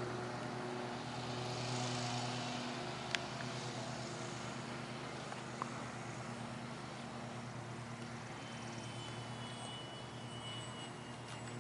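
Scale T-28 radio-control model airplane flying, a steady drone over a hiss that is strongest in the first few seconds and then eases slightly. There is a single sharp click about three seconds in.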